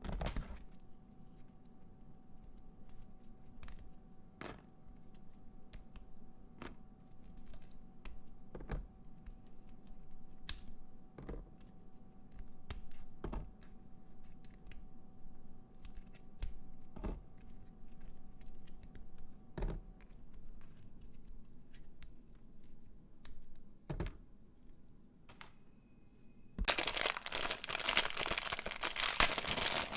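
Plastic toy screw-puzzle pieces being handled and twisted, giving irregular sharp clicks every second or two. About 27 seconds in, a much louder crinkling rustle takes over.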